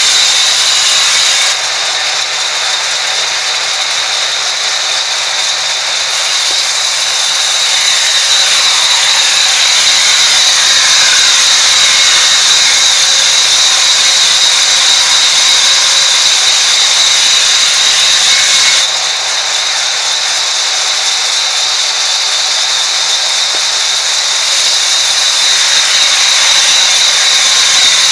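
Sawmill band saw cutting lengthwise through a log: a loud, steady high-pitched whine over rushing noise. It drops suddenly in level twice, a second or two in and about two-thirds through, then builds back up.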